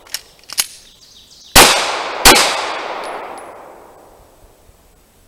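Two handgun shots about 0.7 s apart, each ringing off into a long echo, after a couple of faint clicks in the first second.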